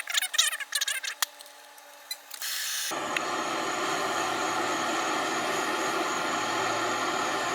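Propane torch being lit: scattered clicks and scrapes, then a short hiss of gas about two seconds in, and the flame catches just under three seconds in and burns with a steady roar.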